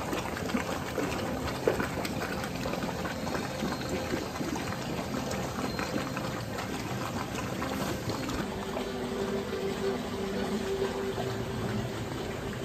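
Water bubbling and splashing steadily in an indoor aquarium display pool, the circulating flow of its pump. Steady low tones join in and grow stronger about eight seconds in.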